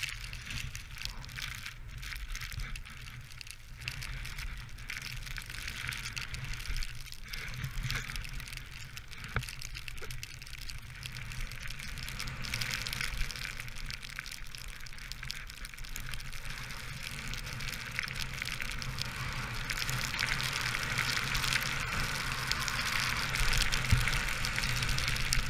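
Snowboard sliding down packed snow, its base and edges making a steady hiss, with wind rumbling on the camera microphone. The hiss grows louder over the last several seconds as the board picks up speed.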